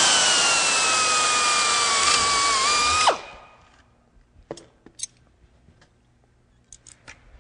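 Pneumatic air drill with a number 40 bit drilling a pilot hole through aluminium sheet: a steady whine over a hiss, sagging slightly in pitch as the bit cuts. About three seconds in it cuts off and spins down. A few light clicks follow.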